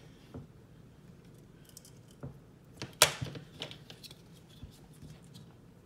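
Alligator clips on test leads clicking as they are handled and clipped onto a transformer's wire leads, with one sharp snap about three seconds in as the loudest sound and a few lighter clicks around it.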